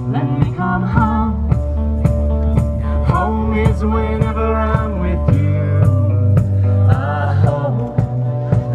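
A song playing, with a singing voice over bass, guitar and a steady beat.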